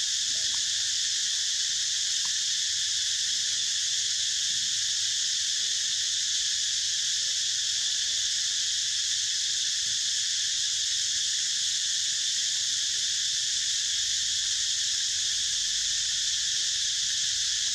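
A steady, high-pitched insect chorus drones on unbroken, with no pauses or change in level.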